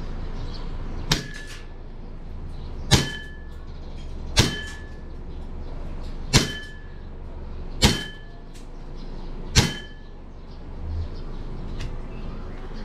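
Green gas airsoft pistol (Glock 19 replica) firing plastic BBs: six sharp shots about one and a half to two seconds apart. Most are followed by a brief ringing tone.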